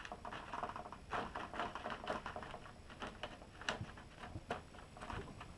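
Faint, irregular rustling and light taps of a thin plastic reflector sheet being handled and pressed flat by hand over the LED backlight strips of an LED TV.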